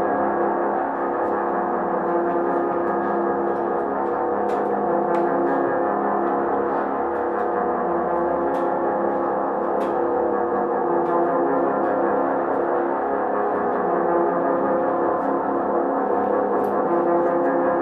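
Droning ambient music: a steady wash of many sustained tones, with a few faint clicks above it.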